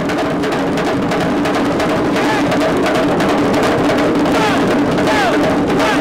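A circle of djembe-style hand drums struck together with bare hands, playing loud as an ensemble in a dense, steady stream of overlapping strokes.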